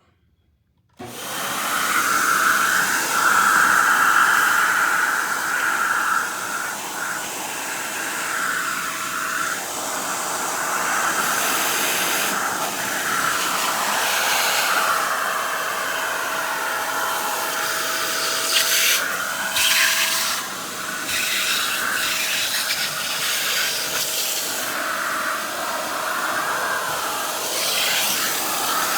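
Vacuum cleaner switched on about a second in, then running loudly and continuously, its suction tone shifting up and down as it sucks up a cobweb.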